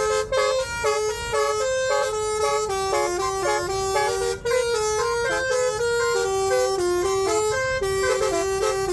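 Telolet horn, a multi-tone musical air horn, playing a fast tune of stepped notes that hop between pitches every fraction of a second with barely a break.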